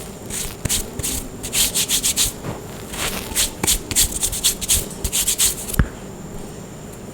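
Glittery gym chalk being crumbled: a run of quick crunching and rubbing strokes, ending in one sharp click about six seconds in.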